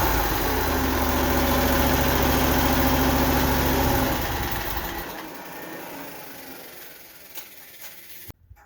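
Mini skid steer engine running steadily, then shut off about four seconds in, its sound dying away over the next few seconds.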